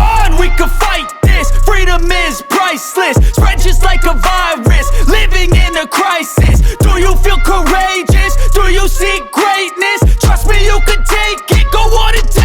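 Background hip hop music with a heavy bass beat that drops out briefly every second or two, and a vocal line over it.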